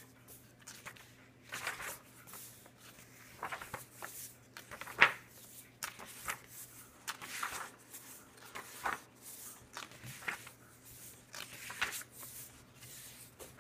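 Pages of a thick hardcover comic book being turned one after another: the glossy paper swishes and rustles in short strokes, with one sharper page slap about five seconds in.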